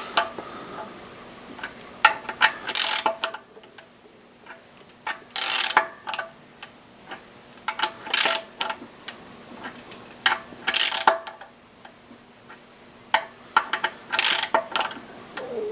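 Hand ratchet clicking in short bursts, about five of them roughly three seconds apart with scattered single clicks between, as nuts are run down on the intake camshaft bearing cap studs.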